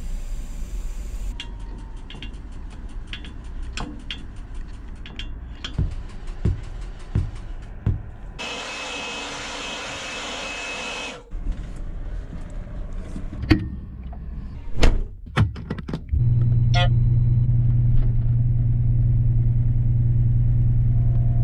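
A string of short machinery sounds: scattered sharp clicks and knocks, then a few seconds of loud hissing. About three-quarters of the way in, a steady low engine drone starts and holds.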